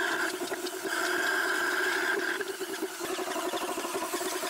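Homemade steam motorcycle's 2-horsepower steam engine running as the bike rolls along at low speed, a steady rapid pulsing. A high steady tone sounds twice in the first couple of seconds.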